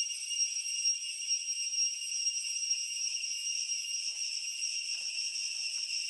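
Cicada singing: a steady, shrill, high-pitched buzz that holds unbroken throughout.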